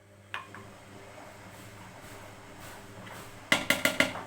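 Glass jar clinking, struck by a utensil or lid. There is one clink about a third of a second in, then a quick run of about five clinks near the end, over a low steady hum.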